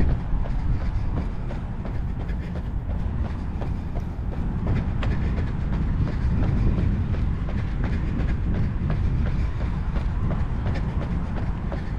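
A runner's footfalls in a quick, even rhythm over a steady low rumble.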